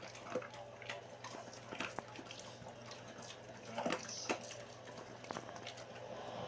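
German shepherd chewing raw chicken, with wet smacking and irregular crunches.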